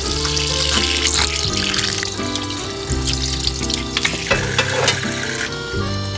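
Kitchen tap running into a stainless steel sink, splashing over raw pork ribs and then into a steel bowl, with a few light clicks, over background music.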